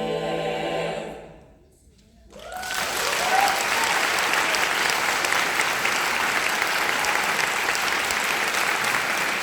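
A choir singing the last held chord of a song, which fades out about a second in; after a brief hush, audience applause starts and keeps up steadily.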